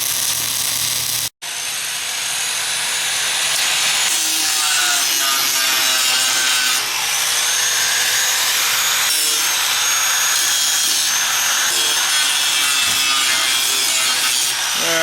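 Angle grinder cleaning up steel on a mowing deck ahead of welding: a steady abrasive grinding with a high motor whine, briefly cut off just over a second in.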